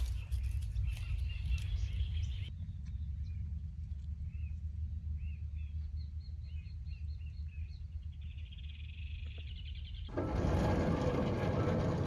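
Dry plant stems and seed pods rustling and crackling as they are handled over a bamboo basket for the first couple of seconds, then small birds chirping over a low steady rumble. About ten seconds in, a louder steady rush of noise comes in.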